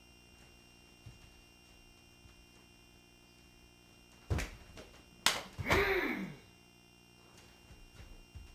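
Karate techniques performed in a gi: two sharp snaps of the uniform as strikes are thrown, about four and five seconds in, followed at once by a short, forceful voiced exhale that falls in pitch. A few faint taps of movement come near the end.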